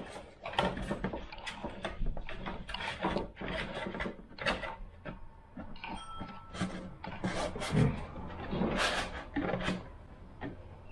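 Model aircraft tail parts being handled on the bench: irregular light taps, knocks and rustles, with a brief thin tone about six seconds in.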